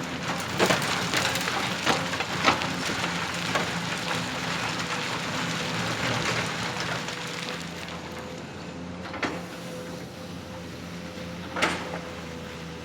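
Small electric motor and pump of a radio-controlled excavator whining steadily, with crunching and scraping of loose dirt or gravel for the first several seconds. Later come two sharp clicks.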